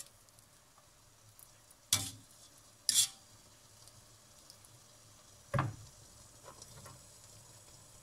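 Stainless wire skimmer knocking and clinking against a steel stockpot and cutting board while boiled meat is lifted out of the broth: three sharp strikes about two, three and five and a half seconds in, the last the heaviest, over a faint steady hiss.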